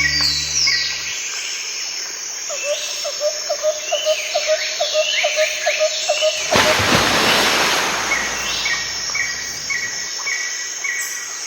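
Birds chirping and calling, with short repeated notes and quick downward-sweeping calls, over a bed of outdoor ambience. A brief noisy rush comes about two-thirds of the way through.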